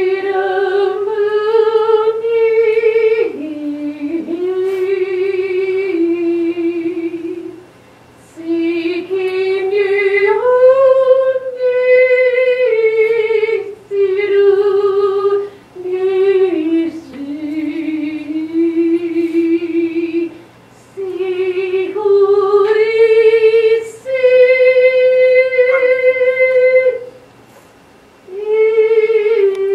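A single voice singing unaccompanied: a slow melody in phrases of a few seconds with short pauses between them, the held notes wavering with vibrato.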